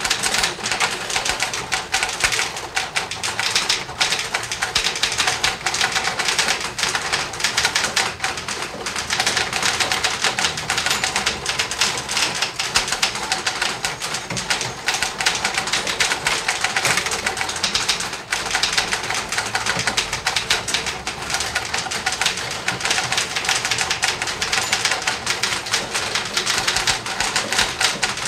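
Six office typewriters typing at once, making a dense, continuous clatter of overlapping keystrokes.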